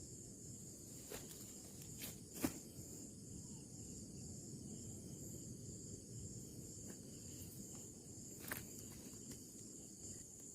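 Steady high-pitched chirring of crickets or other insects, with a few sharp clicks about two seconds in and again near the end.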